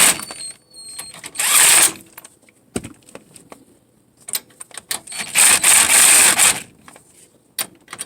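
Cordless power tool run in two short bursts on the brake caliper bolts, with metal clicks and knocks between them; its battery is going dead.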